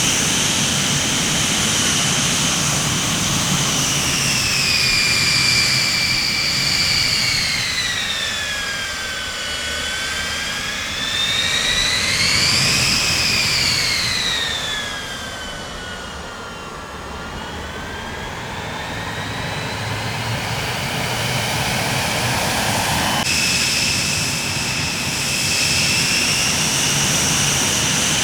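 Jet airliner engines running, a steady roar under a high turbine whine. The whine falls in pitch, climbs again near the middle, and falls once more, then about 23 seconds in switches abruptly to a steady higher whine, as at an edit in the recording.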